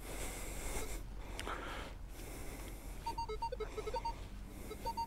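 Minelab Vanquish 540 metal detector giving short target beeps as the coil is swept, starting about three seconds in. Higher tones are broken up by lower ones in a jumpy, mixed response: a target that is hard to call yes or no, with a touch of iron to it.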